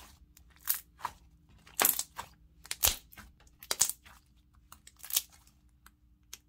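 Glossy, semi-thick slime being squeezed, folded and pressed by hand, giving irregular sticky pops and crackles as air pockets burst.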